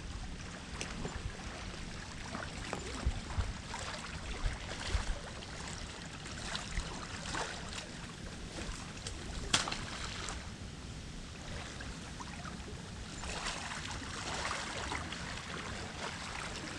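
Shallow water lapping and sloshing close by, with scattered small splashes and sharp knocks. The sharpest knock comes about nine and a half seconds in, and the splashing grows busier a little past the middle.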